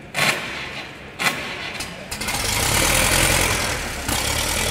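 Vintage tractor engine being started: two short sharp bursts, then from about two seconds in the engine catches and runs loudly.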